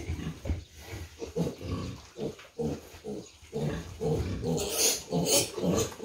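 Piglets grunting in short, quickly repeated calls, one of them caught and held up by a hind leg. Near the end come a couple of louder, shriller bursts.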